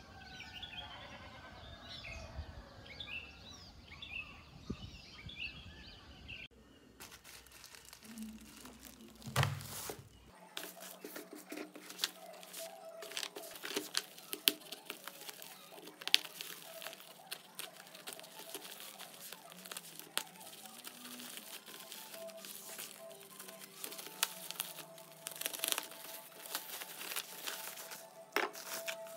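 Plastic courier mailer bag crinkling and its packing tape tearing as it is cut and pulled open by hand, a long run of crackles and rips.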